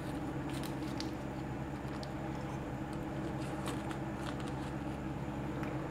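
Paper butter wrapper rustling and a metal spoon scraping butter off it into a plate of mince, a few soft crackles and clicks spread through, over a steady low hum.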